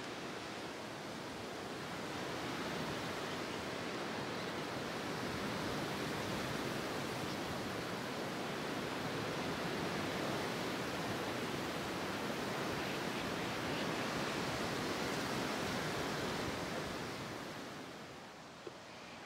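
Strong autumn storm wind rushing over the microphone in a steady roar that eases about three-quarters of the way through.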